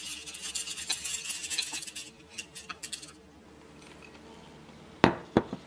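Whole coffee beans pouring from a plastic cup into the stainless steel hopper of a Vivaant manual hand burr grinder: a dense rattle of beans on metal that thins to a few last beans and stops about three seconds in. Near the end, two sharp knocks, the loudest sounds.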